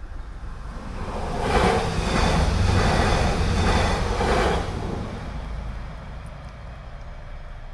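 Greater Anglia passenger train passing at speed: the rush of wheels on rail builds, is loudest for about three seconds with a regular clatter as each bogie goes by, then dies away.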